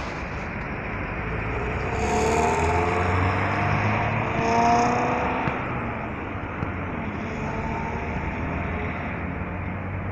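Street traffic: vehicles passing close by, loudest about two seconds in and again near five seconds, with a faint whine riding over the noise.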